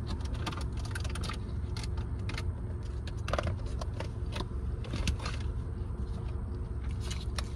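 Scattered light clicks and scrapes of handling food, a plastic takeout container and a plastic water bottle, over the steady low hum inside a car.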